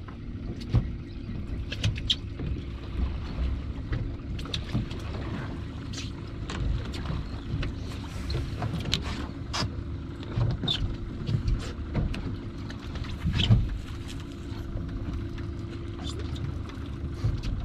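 Small skiff's outboard motor idling with a steady hum over a low rumble, with scattered sharp knocks and clacks, the loudest about thirteen seconds in.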